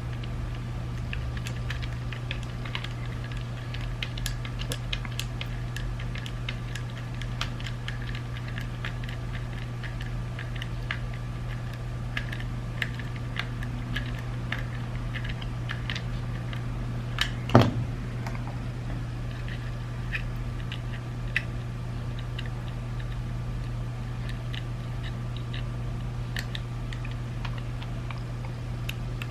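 Small plastic parts of a BMW iDrive controller being handled and fitted together: scattered light clicks and taps, with one louder snap about two-thirds of the way through, over a steady low hum.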